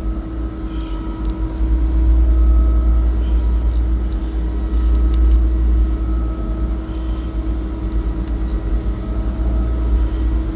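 Steady low mechanical drone with a constant hum, typical of running HVAC machinery, overlaid by scattered sharp metallic clicks and taps from wrench work on bolts.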